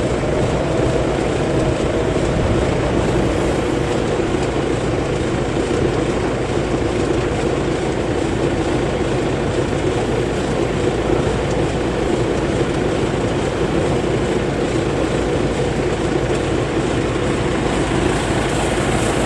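Engine of a WD102 Pro rice combine harvester running steadily, an even drone that holds without change.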